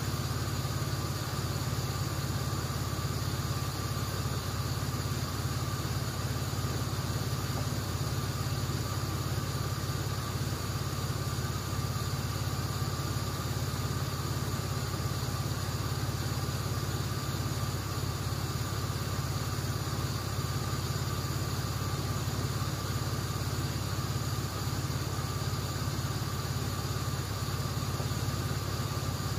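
A 1994 Chevrolet S10 Blazer's 4.3 V6 with CPI spider injection idling steadily through true dual exhaust with Cherry Bomb mufflers. It holds an even idle without cutting out, now that the spider injector has been replaced.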